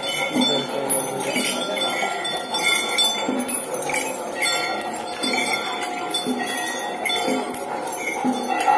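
Metal bells jingling and ringing in repeated, uneven strikes, as from the bells and chains hung on a walking temple elephant.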